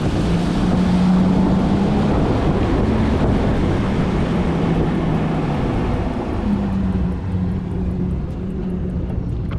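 Bass boat's outboard motor running at speed, a steady engine note that dips slightly in pitch midway and then picks back up.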